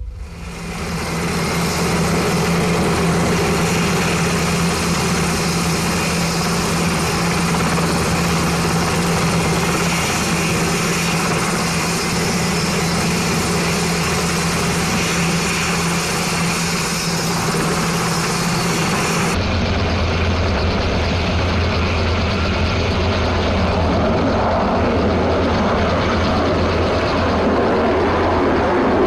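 Sikorsky HH-60 Pave Hawk helicopter running, its twin turboshaft engines and rotors making a loud, steady noise with a constant hum. About two-thirds of the way through the sound changes abruptly to a deeper, duller rotor thrum.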